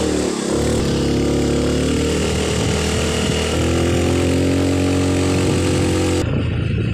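Small motorcycle engine running as it is ridden, rising in pitch as it speeds up in the first second, then holding a steady drone with a shift in pitch about halfway through. A steady hiss rides over the engine and cuts off suddenly near the end.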